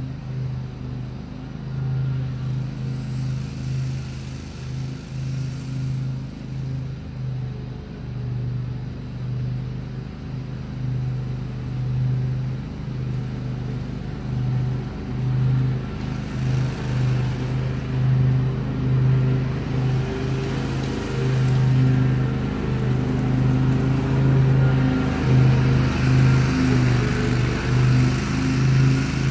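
Grasshopper Model 612 riding mower running steadily while mowing. Its engine hum grows louder in the second half as the mower comes closer.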